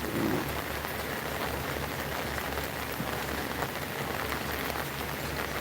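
Steady rain falling, an even hiss of drops, with an uneven low rumble underneath.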